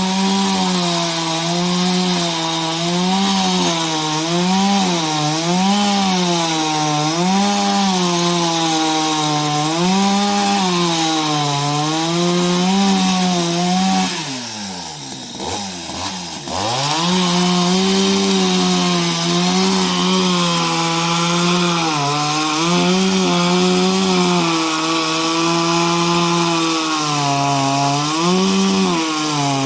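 Chainsaw running at high revs while cutting wood, its pitch wavering up and down as the chain loads in the cut. About halfway through it drops to idle for a couple of seconds, then revs back up and keeps cutting.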